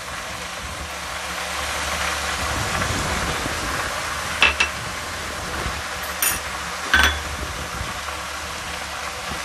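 A pot of leafy greens and tomatoes cooking on a stove, with a steady hiss and low hum, broken by a few sharp clicks in the second half.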